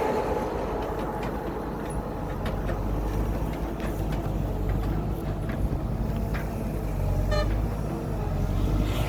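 Excavator diesel engine running steadily under load, with scattered clicks and knocks of the bucket working soil and stones. A short horn-like toot sounds about seven seconds in.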